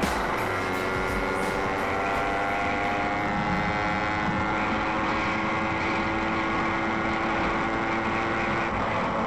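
Motorcycle engine running at steady revs while riding, heard from the bike itself with wind rushing over the microphone; the engine note holds level throughout.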